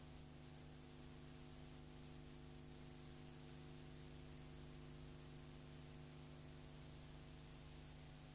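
Near silence: a faint, steady electrical hum over a low hiss.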